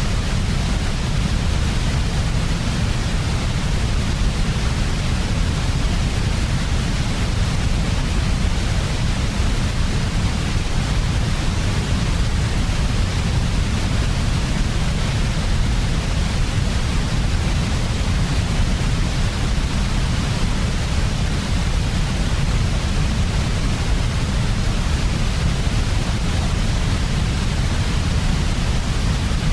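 Steady, unchanging sleep noise (white noise for babies), with a strong low rumble under an even hiss that stays the same throughout.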